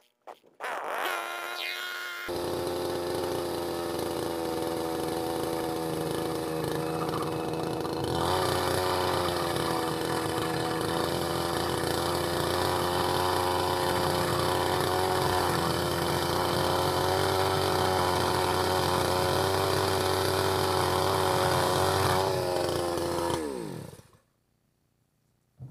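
Electric power tool motor spinning up with a rising whine, running steadily for about twenty seconds, then winding down with a falling pitch near the end.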